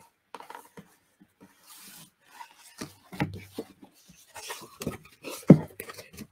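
Handling of a hardcover children's picture book among loose paper: rustling and rubbing of paper and card with scattered light taps, and one sharper knock about five and a half seconds in.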